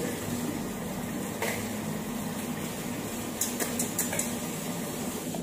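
Tap water running steadily into a sink, with a few light clinks about a quarter of the way in and again past the middle.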